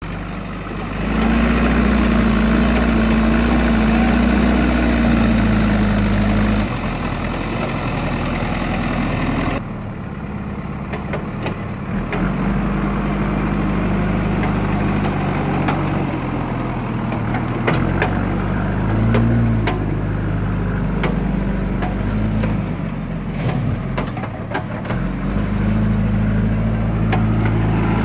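JCB 3DX backhoe loader's diesel engine running, its pitch rising and falling as the machine drives and works its front loader bucket. A few short knocks come in the second half.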